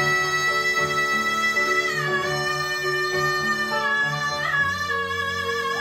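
Female singer belting long held high notes, stepping down in pitch twice, over grand piano chords played in a steady repeated pulse.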